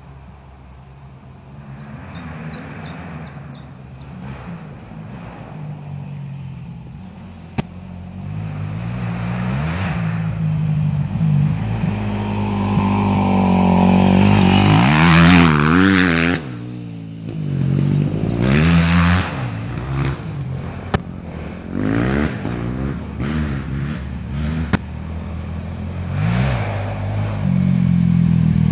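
Dirt bike engines on a motocross track, the engine note climbing and dropping as the throttle opens and shuts. The sound builds from faint to loud as a bike approaches and is loudest about halfway through as it passes close. Another bike grows louder near the end.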